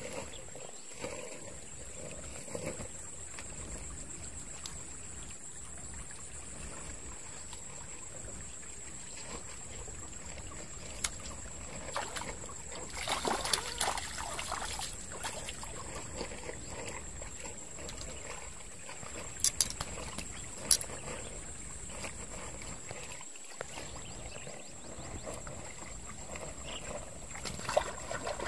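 Small stream trickling steadily, with a hooked tilapia splashing and thrashing at the water's surface for a couple of seconds about halfway through. Two sharp clicks follow a few seconds later, and a thin high-pitched tone runs underneath.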